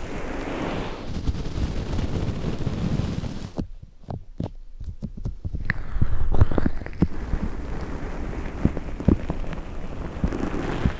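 Hands rubbing and massaging the fluffy fur ear covers of a binaural microphone, right on the mic: a close, dense rustling rumble. It drops away a little under four seconds in to a few soft taps and pops, then resumes about six seconds in.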